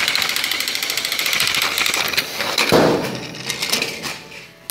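Battery-powered toy train's motor and gears running loudly right at the microphone: a fast, even clicking whirr that starts suddenly, with a heavier knock about halfway through, then fading near the end.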